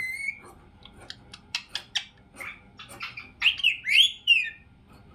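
Pet parrot calling: a run of short, sharp chirps, then three loud squawks in quick succession about three and a half seconds in.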